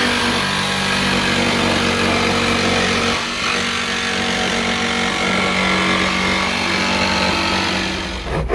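Electric jigsaw cutting through a car's sheet-steel roof panel to open a hole for a sunroof, its motor running steadily with the blade rattling through the metal. It cuts off near the end.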